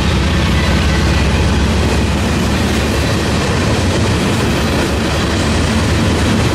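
Union Pacific mixed freight train rolling past, its tank cars, boxcars and lumber cars making a loud, steady rumble of steel wheels on the rails.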